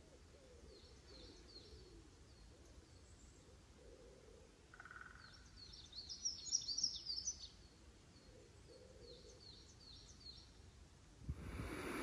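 Woodland birds chirping and singing softly, with a louder flurry of high chirps about six seconds in, and a faint low call repeating underneath. Just before the end, a steady rushing noise sets in.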